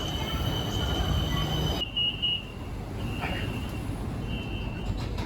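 Bangkok BTS Skytrain rumbling, with a steady high tone over it that cuts off abruptly about two seconds in. After that the rumble goes on more quietly, with a few brief high tones.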